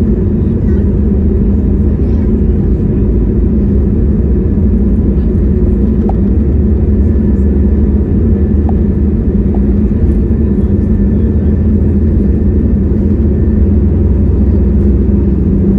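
Jet airliner taking off: a loud, steady low rumble of engines and the roll along the runway.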